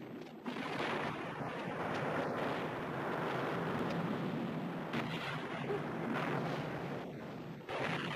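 Film sound effects of explosions: a blast starts sharply about half a second in and runs on as a dense, continuous rumble, with fresh blasts about five seconds in and near the end.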